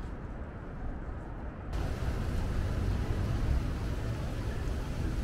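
Steady outdoor city ambience: a low rumble of engines under general background noise. It jumps suddenly louder and brighter about two seconds in.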